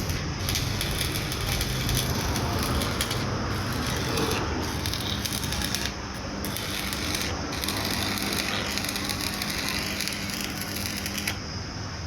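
Electric arc welding: a steady crackling sizzle from the arc, broken by a few brief pauses, that stops shortly before the end.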